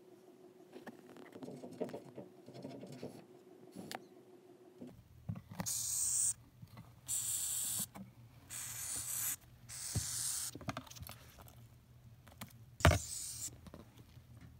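Madagascar hissing cockroach hissing in five short bursts, each under a second: the disturbance hiss it makes by forcing air out of its breathing pores. There is one sharp knock near the end.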